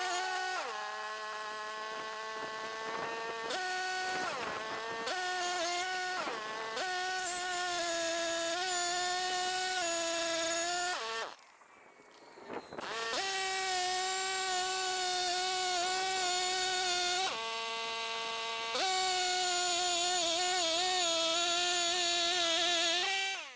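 Woodland Mills HM122 portable band sawmill running, a steady high mechanical whine that shifts in pitch a few times. It drops out briefly about halfway through and cuts off suddenly at the end.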